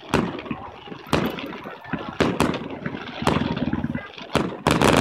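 Aerial fireworks shells bursting: a string of sharp booms roughly a second apart, then near the end a dense volley of rapid crackling bursts.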